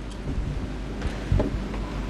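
Steady low hum and room noise of a large hall, with a few soft knocks, the clearest about one and a half seconds in.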